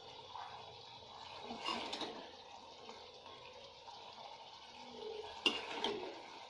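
A steel serving spoon scraping and clinking as wet, saucy curry is spooned onto a plate, with a soft slide of the food about two seconds in and two sharp clinks near the end.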